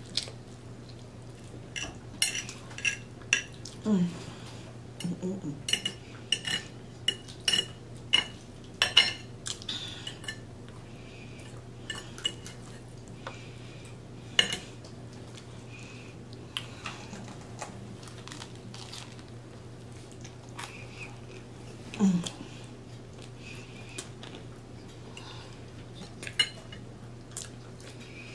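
Metal fork clinking and scraping on a ceramic dinner plate in a string of sharp, separate clicks. They are busiest in the first ten seconds, then come only now and then.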